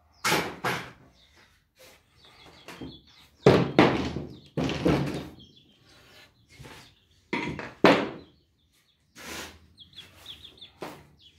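Wooden workpieces being handled and set down on a workbench: a series of irregular knocks and thunks, the loudest about three and a half and eight seconds in.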